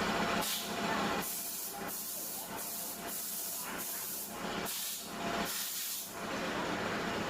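Compressed-air blow gun hissing in a series of short bursts, about seven or eight over several seconds, as CVT transmission parts are blown clean, over a steady low hum.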